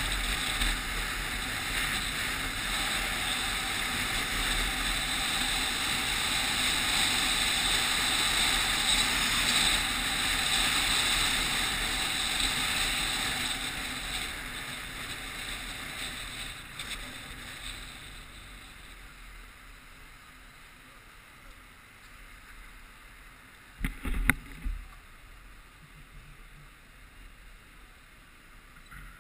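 Wind and road rush on a camera riding on a moving motorcycle. It dies away to a low hum as the bike slows to a stop, with a couple of sharp knocks about 24 seconds in.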